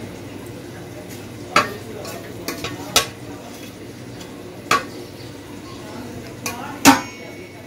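A utensil clinking and scraping against a serving dish: about six sharp clinks with a brief ring, the loudest near the end, over a low steady hum.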